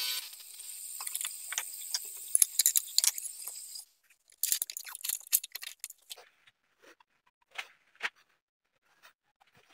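Homemade disc sander on a 3/4 HP motor: a steady whirring hiss with light ticks, which stops abruptly about four seconds in. After that come scattered clicks and rustles as hands handle the disc and fit an abrasive sheet onto it.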